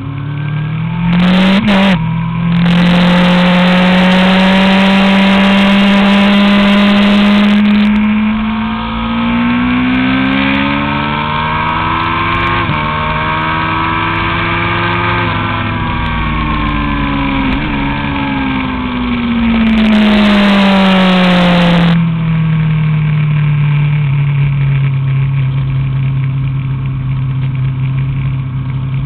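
Honda CBR1000RR's inline-four engine heard close up at track speed: it rises in pitch with a quick gear change about two seconds in, pulls up again with another shift near the middle, then falls away as the rider eases off, and settles into a steady lower note for the last several seconds.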